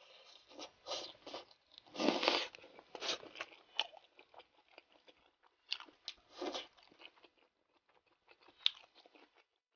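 Close-up mouth sounds of someone biting and chewing a whole pan-fried green chili pepper: soft crunching and wet chewing in scattered bursts, loudest about two seconds in. A single sharp click comes near the end.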